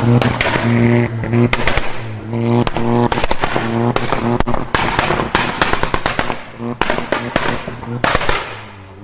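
Car engine held at steady revs while its exhaust pops and bangs in rapid, irregular cracks, backfiring.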